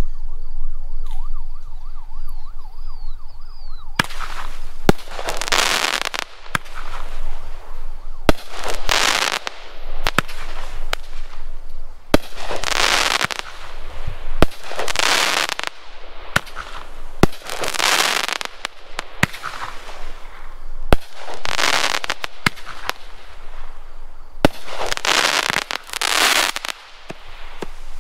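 A 200 gram consumer firework shot cake firing. Sharp reports of shots and breaks start about four seconds in, and each break is followed by a second or so of crackle.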